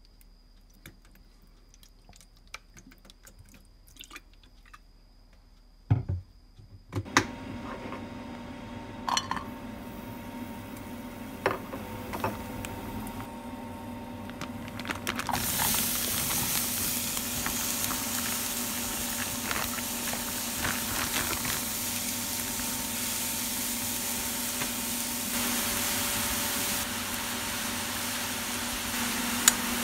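Kitchen cooking sounds. A few faint ticks, then sharp knocks and handling noises about six seconds in. A steady hum starts about seven seconds in, and a steady hiss joins it about halfway through.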